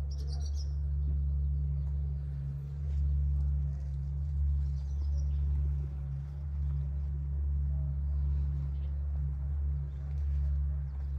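A steady low hum that swells and fades slightly, with a few faint bird chirps near the start and again about five seconds in.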